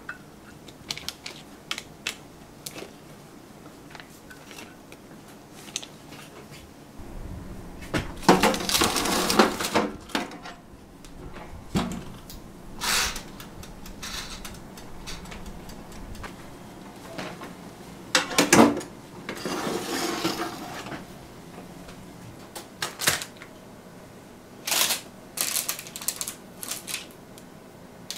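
Kitchen handling noises: scattered clicks and knocks, a few longer louder clatters, and a quick run of clicks near the end, as a tray of hand-pies goes into a toaster oven and its dial knobs are turned.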